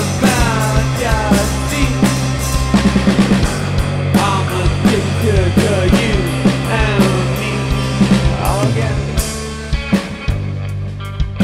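Live rock band playing an instrumental passage: electric guitar over bass guitar and drum kit, with repeated falling guitar lines. The bass drops away about nine seconds in, leaving a thinner sound.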